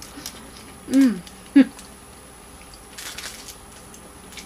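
A woman's hummed "mmm" that falls in pitch, then a second short one, as she savours a caramel. Faint rustling follows about three seconds in.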